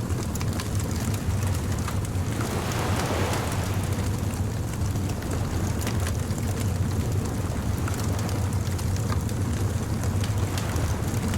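Beach bonfire crackling, with scattered pops over a steady low rumble. A soft wash of surf swells and fades about two to four seconds in.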